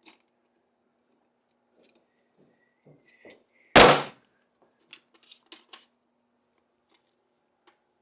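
Sparse metal clicks and clinks from a piston ring compressor and hand tools being worked around the pistons of a 1967 Triumph TR6 motorcycle engine, with one loud metal clank about four seconds in and a few lighter clicks a second or two after it.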